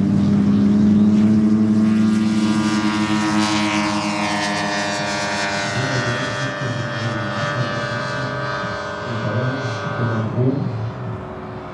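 Turboprop engine and five-blade propeller of a 1:3-scale Grob G 120TP model aircraft flying past: a steady propeller drone with a high turbine whine. The pitch slides down about four seconds in as it passes, then the sound fades.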